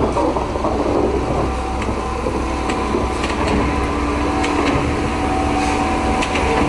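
Diesel engine of a DB class 362 shunting locomotive running slowly at low revs close by, a steady low drone. About two and a half seconds in, a steady higher whine joins it, with a few light clicks.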